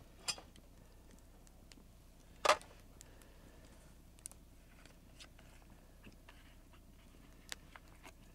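Chunks of coal being put onto a cooking fire: two short clatters, the louder about two and a half seconds in, with a few faint ticks between.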